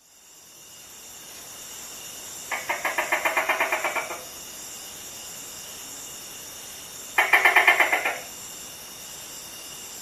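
Gecko calling: two rapid chattering bursts of clicking chirps, about eight a second, the first lasting about a second and a half a few seconds in, the second about a second long later on. A steady high hiss runs behind them.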